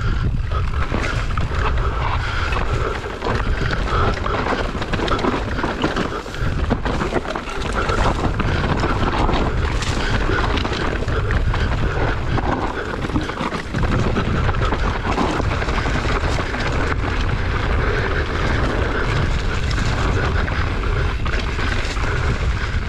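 Mountain bike descending a rough dirt singletrack: wind buffeting the microphone in a steady low rumble, with tyres on dirt and stones and the bike rattling and clattering over bumps throughout.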